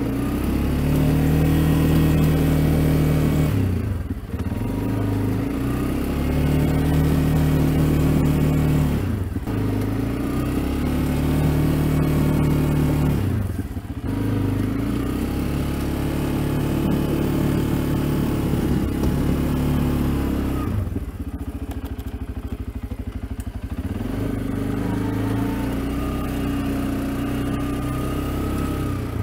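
CFMoto CForce ATV's single-cylinder engine under load pushing a snow plow blade: it revs up and holds steady in repeated pushes, dropping back toward idle between them about every four to five seconds, with a lower, quieter stretch near the end.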